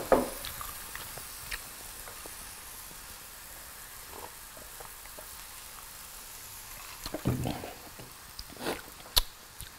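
Thin pork cutlets sizzling on a hot grill plate over a portable butane stove: a low, steady hiss. A few small clicks and knocks come near the end.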